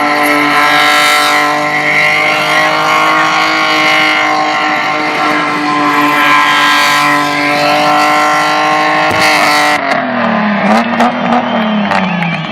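VL Commodore's six-cylinder engine held at steady high revs during a burnout, with the hiss of spinning tyres. About ten seconds in the revs drop off and the engine is blipped up and down at lower revs.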